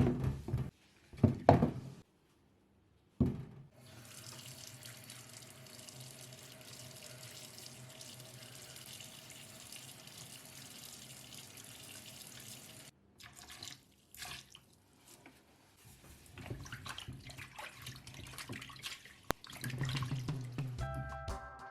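Tap water running steadily into a sink for about ten seconds, with short knocks and handling sounds before and after.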